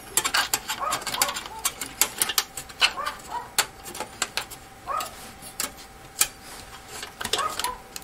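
A dog barking in the background in short, separate barks every second or two. Over it come sharp clicks and rattles from hands working the metal drive cage and case of a small desktop computer; the clicks are the loudest sounds.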